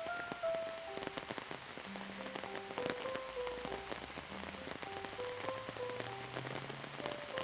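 Steady rain falling, with many individual drops ticking on a surface. A gentle melody of short held notes plays over it, with a low sustained note underneath in the second half.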